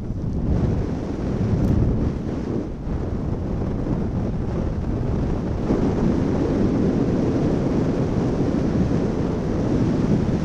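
Strong wind buffeting the microphone: a steady, loud low rumble of rushing air that swells a little about half a second in and again around the middle.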